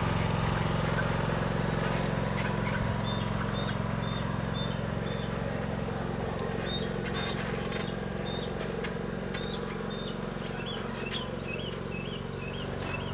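Riding lawn mower engine running steadily, growing fainter as the mower moves away. A bird chirps repeatedly over it, its short calls coming quicker near the end.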